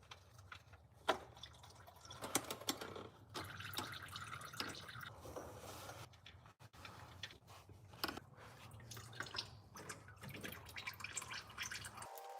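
Engine oil running and dripping during an oil change, with scattered clicks and knocks over a steady low hum.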